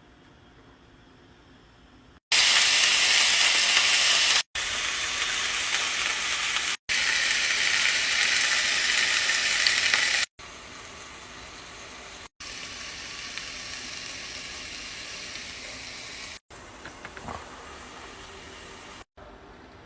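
Food sizzling in a hot pan, loud for several seconds after a quiet start, then softer. The sound breaks off abruptly and changes level several times across a string of short clips.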